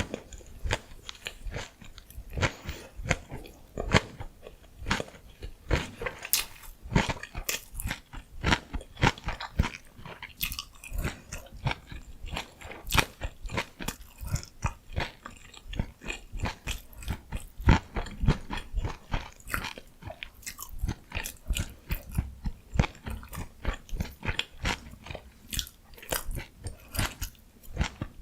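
Close-miked chewing of gimbap (Korean seaweed rice rolls): a steady run of short wet crunches and clicks, several a second.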